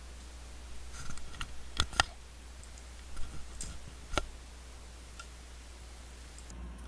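A handful of sharp clicks and light knocks from hard objects being handled, the two loudest close together about two seconds in and another near four seconds, over a steady low hum.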